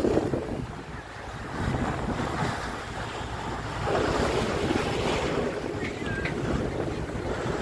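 Wind buffeting the microphone over the rush and splash of choppy sea against a moving boat's hull.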